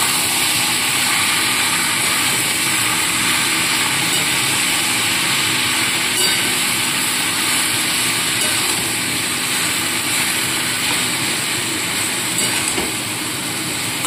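Boiled ash gourd and fried hilsa heads sizzling steadily in hot mustard oil in a metal wok as they are stirred with a metal spatula, with a couple of faint scrapes of the spatula.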